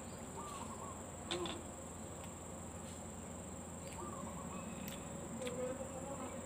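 Insects buzzing in one steady high-pitched drone, with a few light taps, the sharpest just over a second in.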